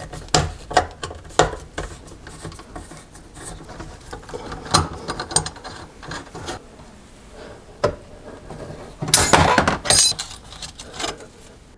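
Metal clicks and taps of a screwdriver backing out the screws on a garbage disposal's sink-flange mounting ring, with a louder, denser spell of metal clatter about nine seconds in.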